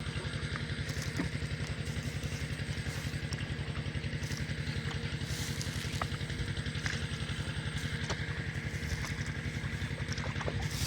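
Small engine running steadily at a fast, even pulse, with a few faint clicks over it.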